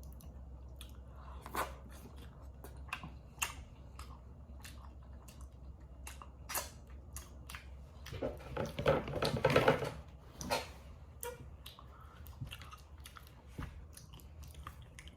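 A person chewing food close to the microphone, with scattered wet mouth clicks and smacks. A louder, longer spell of chewing and throaty mouth noise comes a little past halfway.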